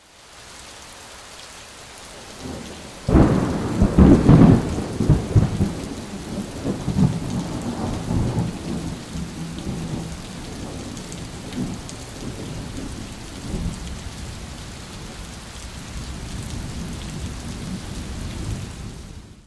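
Thunderstorm: steady rain, with a sudden thunderclap about three seconds in that rumbles on for several seconds and fades back into the rain.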